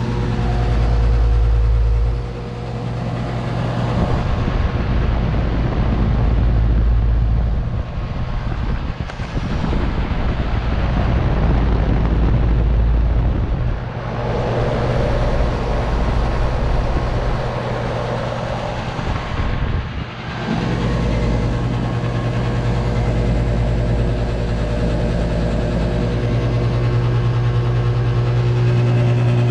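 2012 Bryant Legacy Line air conditioner's outdoor unit running with a steady electrical buzz and hum, carrying an odd sound the owner says sounds off. A deep low rumble comes and goes in stretches of a few seconds over the hum.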